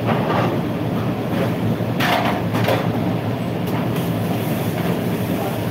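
Commercial kitchen extraction hood fan running with a steady low drone, with a few brief metallic clatters about two to four seconds in.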